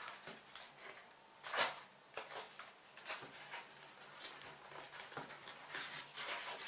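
Hands handling a small drone battery and its plastic packaging: light scattered rustles and clicks, a sharper click about a second and a half in, and a loud sharp snap at the very end.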